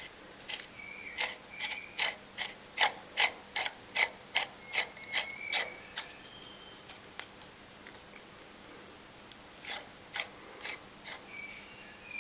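The milling machine's Z-axis quill ballscrew drive clicking as it works: a run of sharp clicks, about two or three a second for roughly five seconds, then a few more near the end, with short faint high tones among them.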